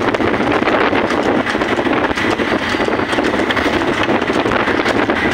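Steady wind rushing over the microphone while travelling at speed, mixed with running motorcycle engine and road noise, with a constant crackle and rattle.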